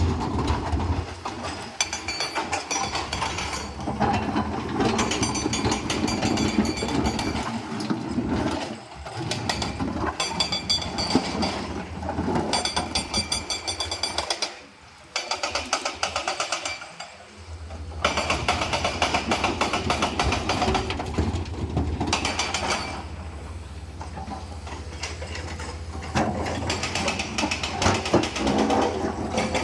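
Komatsu PC210LC-10 hydraulic excavator's diesel engine running under load while crushed stone rattles and clatters in the bucket and tips out. The clatter briefly drops off about halfway through, then comes back over a steadier engine hum.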